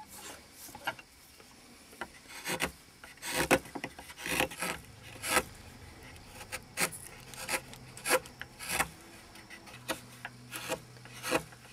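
Firmer chisel paring lime wood by hand: a series of short, irregular scraping cuts as a sawn edge is cleaned up.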